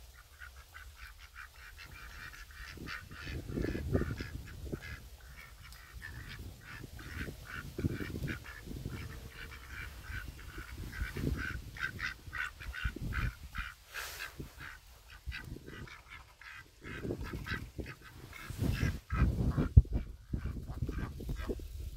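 Pen-kept mallard ducks quacking and chattering in quick runs of short calls, with a few low thumps near the end.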